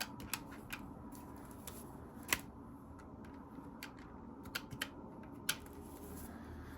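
Handheld calculator keys being tapped: a dozen or so short, irregularly spaced clicks, one louder about two seconds in, as a subtraction is punched in.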